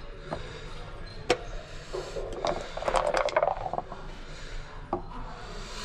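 Backgammon checkers clicking against the board, with a sharper click about a second in. About halfway through, dice rattle in a dice cup and are tossed out to clatter across the board.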